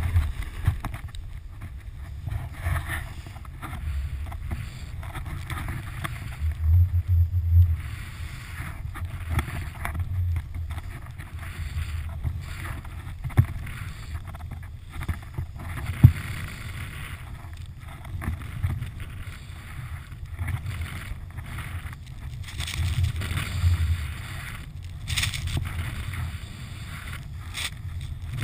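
Wind buffeting the microphone of a pole-mounted action camera as a snowboard slides through fresh powder. A low, gusting rumble runs underneath, while the hiss of the board in the snow swells and fades with each turn. Two short, sharp knocks come past the middle, the second the loudest.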